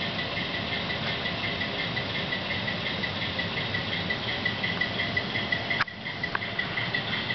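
HO-scale model locomotive's DCC sound decoder playing a diesel engine idling: a steady hum with a fast, regular high ticking on top. A short click about three-quarters of the way through.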